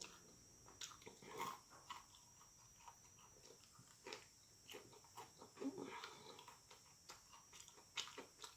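Faint chewing of food: scattered soft mouth smacks and clicks.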